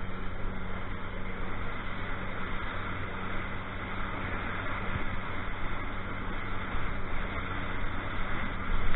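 Fishing boat running under way: a steady engine drone under a constant rush of wind and water.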